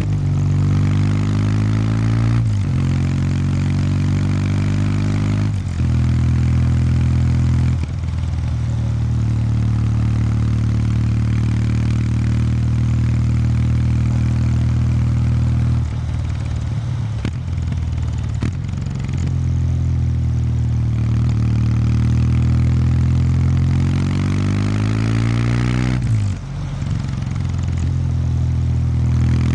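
Kawasaki W800 Street's air-cooled parallel-twin engine through its stock exhaust, riding along. The exhaust note rises with the throttle and drops back sharply several times as the gears change, with a brief slowdown and pick-up near the end.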